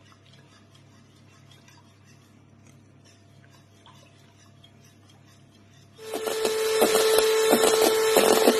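Faint scraping of a spoon stirring melting chocolate in a glass bowl. About six seconds in, an electric hand mixer starts and runs loud and steady with a humming whine, its beaters whipping egg whites in a metal bowl.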